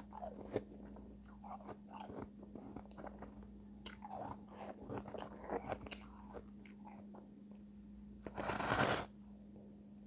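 Close-miked crunching and chewing of refrozen shave ice: a run of small crackly snaps as the icy pieces break between the teeth, with one louder, longer crunch about eight and a half seconds in.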